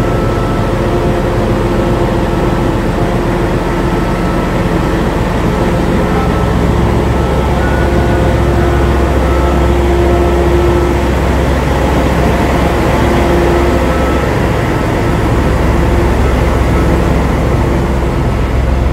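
D.445 diesel-electric locomotive pulling away with its train, its diesel engine running hard under load with a deep steady rumble and a steady hum. The rumble swells about four or five seconds in as the locomotive draws alongside.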